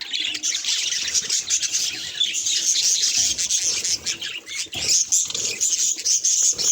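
Budgerigar chattering and warbling: a dense, unbroken stream of quick high chirps.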